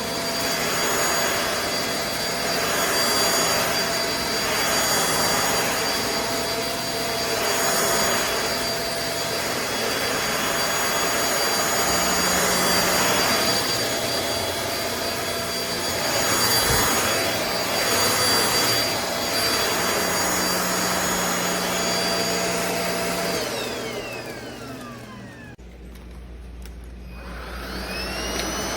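NADALY cordless stick vacuum running with a steady motor whine that swells and fades every couple of seconds. About 24 seconds in, the motor winds down with a falling whine and goes quiet. Near the end, it spins back up with a rising whine.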